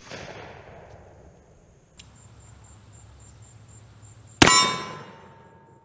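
Echo of a black-powder revolver shot fading away, a small click about two seconds in, then a second shot from the Pietta 1858 Remington .44 cap-and-ball revolver a little after four seconds in, followed by a ringing tone that fades over about a second.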